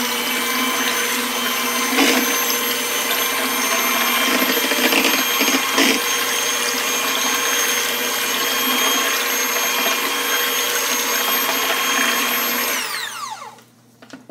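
Electric hand mixer running at a steady speed, its beaters churning thin pancake batter, with a few brief knocks of the beaters against the bowl. Near the end the motor winds down and stops.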